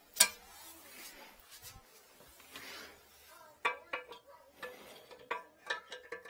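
Light handling noises on a porcelain toilet: one sharp knock just after the start, then a quieter stretch and a quick run of small clinks and taps with a short ringing note near the end.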